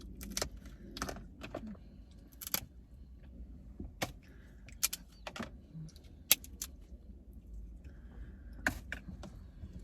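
Crab legs being cracked open and their shells handled by hand: irregular sharp clicks and snaps, a dozen or more spread unevenly, over a faint low steady hum.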